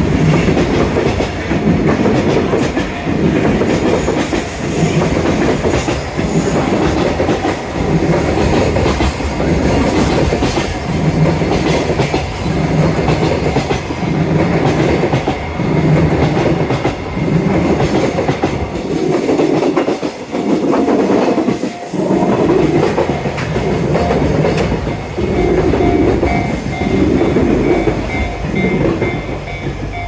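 Container freight train passing close by, its wagon wheels clattering over the rail joints in a steady rhythm of about one beat a second.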